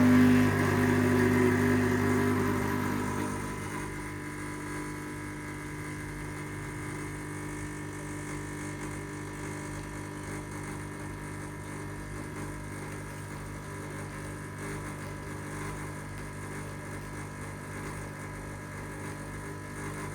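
Espresso machine pump humming steadily while pulling a shot. It is louder for the first few seconds, then settles lower and cuts off near the end; the shot runs a little fast.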